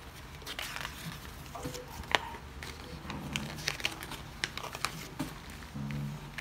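Paper pages of an induction cooker's instruction manual being leafed through: rustling and crinkling, with a few sharp clicks, one about two seconds in and several more from the middle on.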